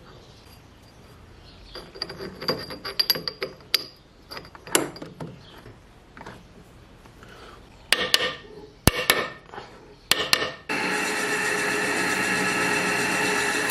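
Metal clinks and knocks as a workpiece is fitted and clamped in a lathe chuck. About eleven seconds in, the homemade lathe starts up suddenly and runs steadily with a whine made of several steady tones.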